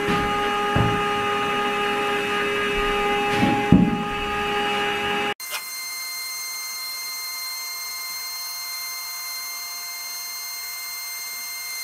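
Electric drive of a Ladies First automatic chicken door running as it lowers the door panel to close: a steady motor whine, with a couple of light knocks in the first four seconds. About five seconds in the sound changes abruptly to a quieter, thinner hum with higher steady tones.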